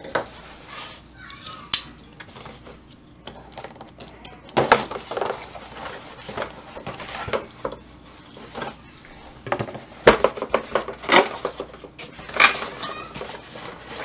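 A cardboard parts box being handled and opened by hand: the flap is pulled open with rustling and scraping, and several sharp knocks and rattles come at irregular moments.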